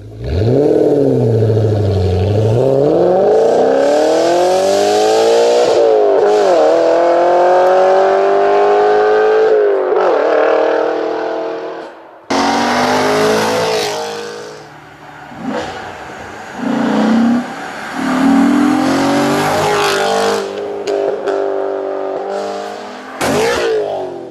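Audi RS4's V8 through a loud straight-piped exhaust, accelerating hard away with the pitch climbing and dropping back at gear shifts about six and ten seconds in. After a sudden break it is quieter, the revs rising and falling unevenly with a few short loud blasts.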